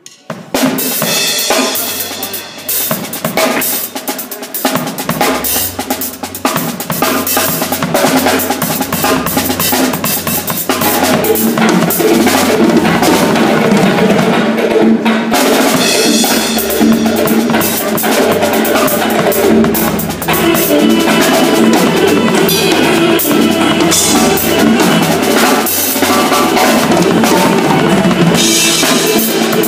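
Drum kit played in a gospel style, with kick, snare and cymbal strokes and busy fills, over accompanying music with a bass line that moves in steps.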